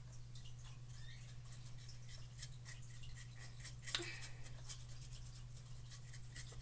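Paintbrush bristles brushing paint onto a birdhouse: light, quick scratchy strokes, one a little louder about four seconds in, over a steady low hum.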